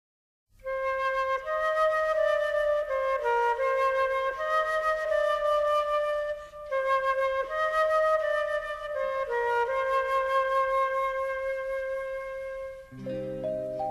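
Background music: a slow solo flute melody of held notes, starting about half a second in. Near the end, lower notes of another instrument come in under it.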